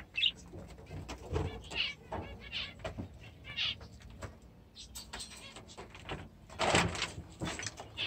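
Small birds chirping in short, warbling calls about once a second, with a burst of rustling a little before the end.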